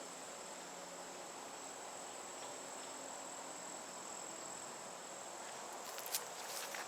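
Insects trilling in one steady, unbroken high-pitched note, faint, with a few soft clicks near the end.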